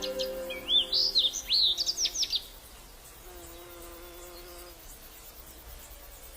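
A songbird singing a quick run of high whistled notes that slide up and down, for about two and a half seconds. After that comes a faint, steady buzzing background.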